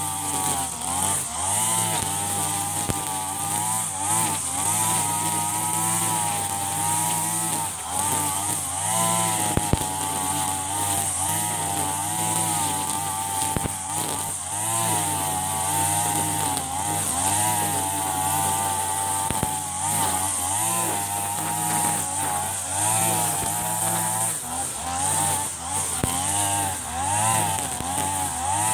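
Backpack brush cutter with a Mitsubishi TU33 two-stroke engine running at high speed while cutting tall grass, its pitch wavering up and down as the cutting head takes and sheds load, with a few sharp ticks of debris.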